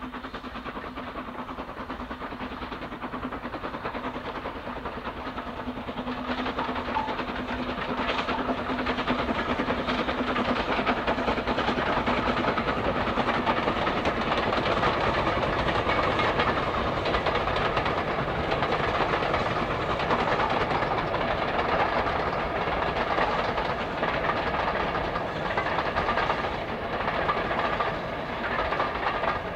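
Steam-hauled train getting louder over the first ten seconds or so as it approaches, then running past close by.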